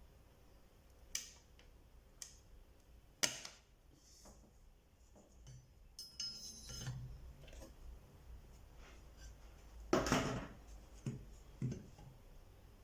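Small hard objects clicking and clinking as they are handled on a work surface: scattered single taps, a short scratchy rattle about six seconds in, and a louder cluster of knocks around ten seconds.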